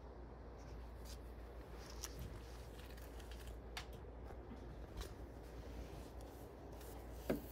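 Quiet room tone with scattered faint clicks and rustles of books and the phone being handled, then a sharper knock near the end as a book is pulled from a metal library shelf.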